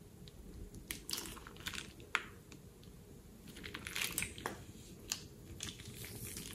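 Sticky, wet squelches and plastic crinkling as a plastic piping bag full of purple glue is squeezed out and peeled away from the wet puddle, with sharp little clicks and crackles in uneven clusters.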